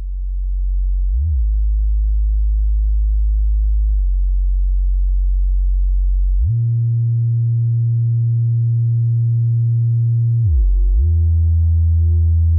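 Low electronic sine-like tones held as a steady drone, sliding to new pitches a few times: about a second in, again about halfway through, and with a dip and rise near the end.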